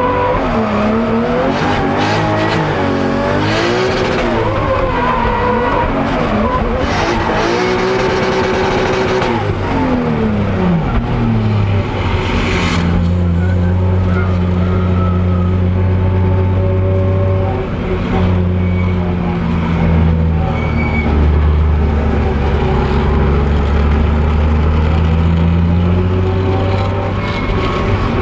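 Drift car's engine heard from inside the cabin, revving up and down hard with tyre squeal during a drift. About ten seconds in the revs drop away to a low, steady engine drone as the car rolls slowly.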